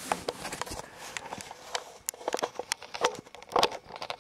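Handling noise from a camera being picked up and moved: irregular clicks, taps and rustles, a few louder ones about three and three and a half seconds in.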